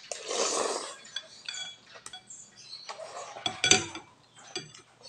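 A mouthful of noodles slurped for nearly a second, then metal fork and spoon clinking and scraping against a glass bowl of soup, with the loudest clinks about two-thirds of the way through.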